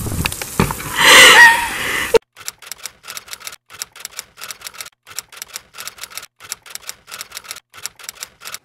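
A woman laughing loudly for the first two seconds, cut off abruptly. Then a typewriter key-click sound effect, about three clicks a second, as on-screen text types itself out letter by letter.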